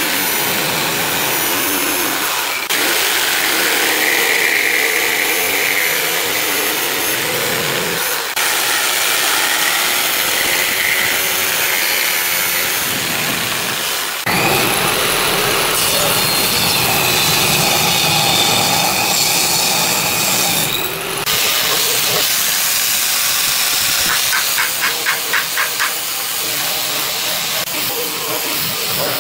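Electric jigsaw cutting into a wooden board in several separate cuts, its blade running with a steady rasp. Near the end an angle grinder with a sanding disc takes over, sanding along a wooden strip with a hissing sound.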